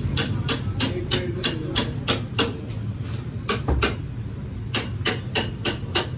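Repeated sharp strikes of a kitchen utensil, about three a second, each with a short metallic ring. The run pauses briefly twice. This is typical of chopping or tapping during street-stall food preparation.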